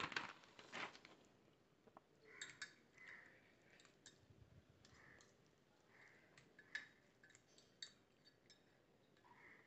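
Faint clicks, clinks and soft scrapes of a fork and spoon stirring noodles and cheese in a ceramic mug, with a few sharper taps against the rim.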